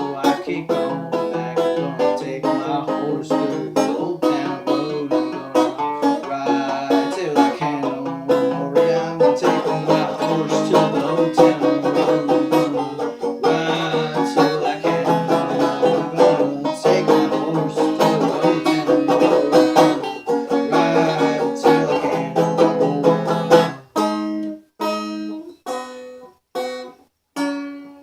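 A plucked string instrument strummed in a steady rhythm with no singing. About four-fifths of the way in, the strumming thins to single chords about once a second, each left to ring out.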